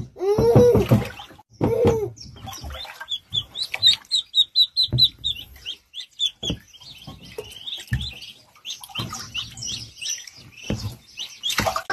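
Ducklings peeping: long runs of short, high chirps in quick succession. A baby's short vocal sounds come in the first two seconds.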